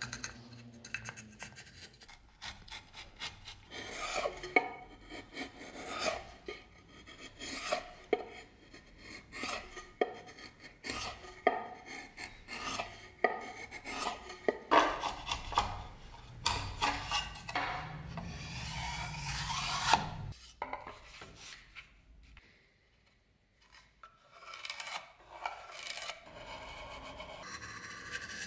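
Hand chisel and knife shaving and scraping a beech handle blank held in a vise, in many short, irregular strokes. About two-thirds of the way through comes a longer run of scraping, then a few seconds of quiet before the strokes resume.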